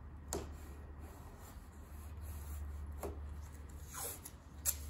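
Faint rubbing and a few light knocks of a paper pattern being fitted and marked against a car body panel, over a steady low hum.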